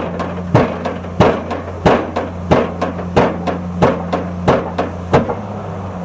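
Hydraulic impact hammer of a Junttan PM 25H pile-driving rig striking a concrete pile in an even rhythm, about one and a half blows a second, over the steady hum of the rig's engine. The blows stop about five seconds in.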